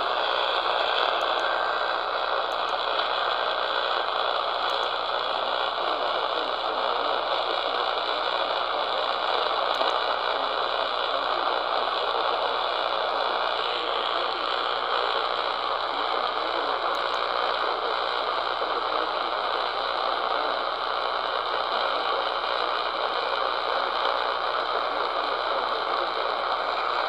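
Steady hiss and crackle of AM radio static from a receiver on a weak AM signal, even in level throughout with no clear voice or tones standing out.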